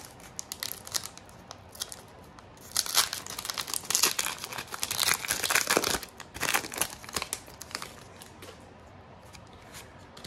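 Foil wrapper of a Pokémon Chilling Reign booster pack crinkling and tearing as it is opened, the crackling densest and loudest from about three to six seconds in, then thinning to lighter rustles.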